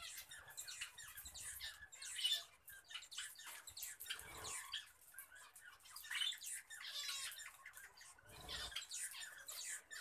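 A flock of budgerigars chattering, a dense run of short high chirps and squawks from many birds at once.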